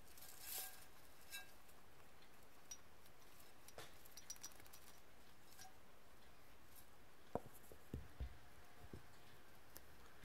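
Faint, sparse clicks and rustles of rabbits nibbling hay and shifting about in a wire cage, with a few soft, short thumps late on.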